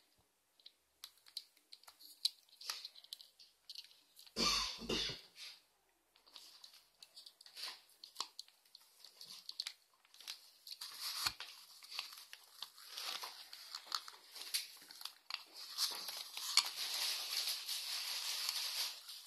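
Small plastic toy figurine being pressed and fitted onto a clear plastic stand by hand: scattered light clicks and crinkly plastic rustling, with a louder scrape about four and a half seconds in and denser rustling in the second half.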